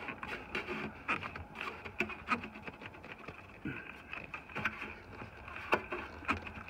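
Scattered light clicks and knocks of hands working at the replacement light control module (turn-signal flasher) just pushed into its socket, over a steady faint hum.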